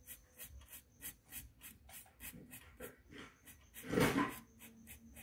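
Red colouring pen scratching on a colouring-book page in quick, even strokes, about four a second, with one louder brief rustle about four seconds in.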